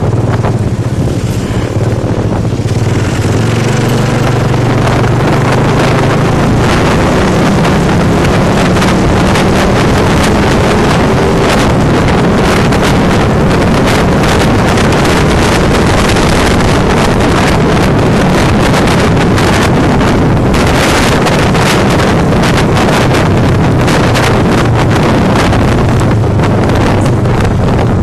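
Small motorcycle engine running while riding, under heavy wind buffeting on the microphone.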